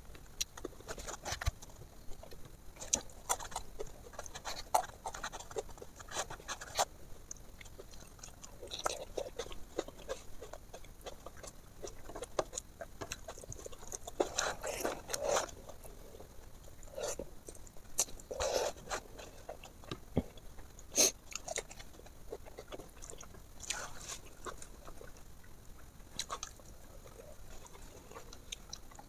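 A person eating with her hand, close to the microphone: chewing and crunching food, with many short wet mouth clicks and smacks, and soft squishing of rice being mixed and squeezed by hand on a plate.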